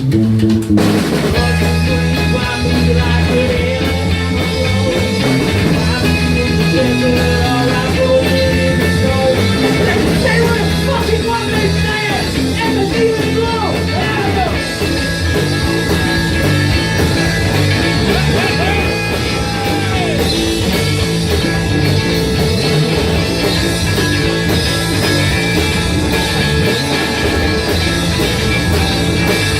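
Live rock band playing an instrumental passage, loud and steady, with electric guitar, bass guitar and drum kit.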